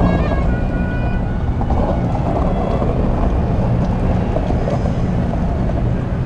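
Steady rumble of wind buffeting the camera's microphone while moving along a park path, with a low hum underneath.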